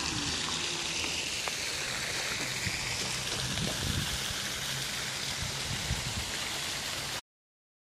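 Park fountain jets splashing into a stone basin: a steady rush of falling water that cuts off suddenly about seven seconds in.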